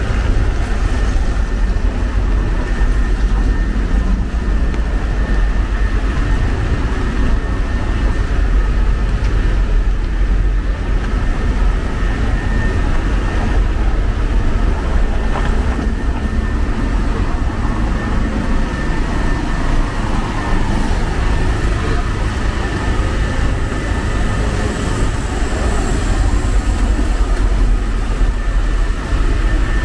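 Steady city street noise: a continuous rumble of traffic, with people's voices mixed in.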